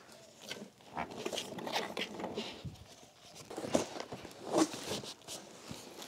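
Cardboard shipping box being pulled open and handled: irregular rustling, creasing and scraping of cardboard flaps, with scattered sharp clicks.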